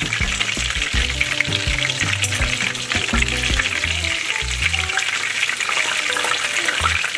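Hot oil sizzling and crackling steadily around breaded chicken breasts deep-frying in a pan, the pieces golden brown and done and being lifted out.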